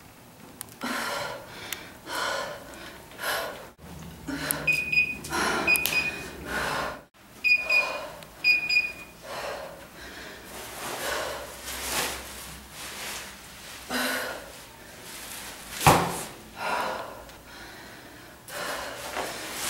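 A woman's hard, rhythmic breathing during exercise, a forceful exhale about once a second. In the middle come a few short, high electronic beeps like an interval timer's, and near the end one sharp thump.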